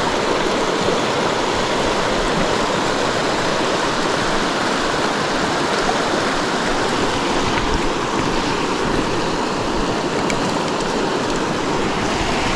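Small mountain creek rushing over a rocky riffle: a steady, even rush of water close by.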